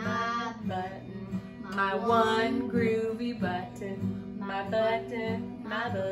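Acoustic guitar strummed steadily, with a woman singing a simple children's song over it.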